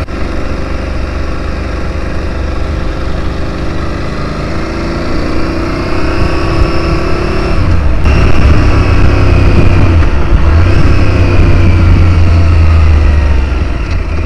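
Aprilia Tuareg 660's parallel-twin engine accelerating, its note rising in pitch, then breaking off briefly about eight seconds in at a gear change. Heavy wind buffeting on the microphone, louder in the second half.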